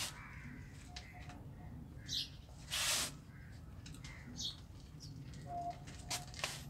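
Small birds chirping now and then in short high calls, over a steady low hum. About three seconds in there is a brief rustle as oyster mushroom clusters are pulled from the plastic grow bags.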